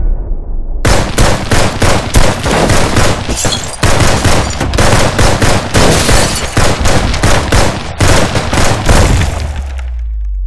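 Rapid rifle fire, shot after shot for about eight seconds with two brief pauses, bullets tearing into a car. It ends in a low rumble.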